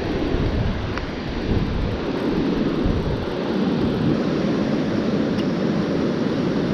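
Wind buffeting the microphone in a steady low rumble, with beach surf washing underneath.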